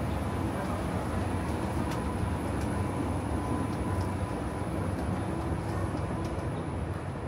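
Busy city street ambience: a steady low rumble of passing vehicles with no single event standing out.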